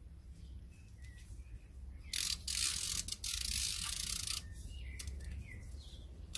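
Socket ratchet clicking rapidly for about two seconds around the middle, with a few weaker clicks either side, as it turns a cylinder-head bolt during angle tightening.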